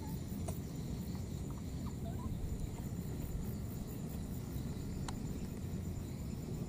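Outdoor ambience: a steady low rumble with a thin, continuous high insect buzz over it. A few faint short chirps and one faint click about five seconds in.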